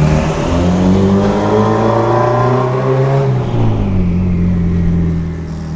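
Mitsubishi Lancer Evolution VIII's big-turbo 4G63 four-cylinder accelerating, its pitch climbing steadily for about three seconds. The pitch then drops as the throttle comes off and settles to a steady lower note near the end.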